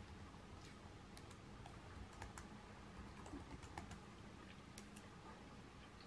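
Faint typing on a ThinkPad laptop keyboard: irregular, quiet key clicks.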